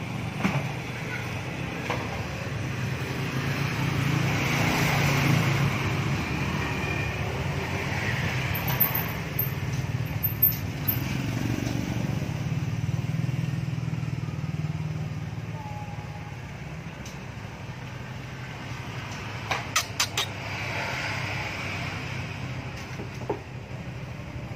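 Background motor traffic passing, rising and fading twice over a steady low hum, with a quick run of sharp clicks about twenty seconds in.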